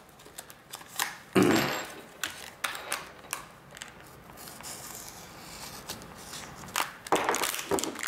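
Plastic clamshell blister pack, already slit open, being pulled apart and handled by hand: irregular crackling and crinkling of stiff plastic and cardboard with scattered small clicks. The loudest crunch comes about one and a half seconds in, with more crinkling near the end.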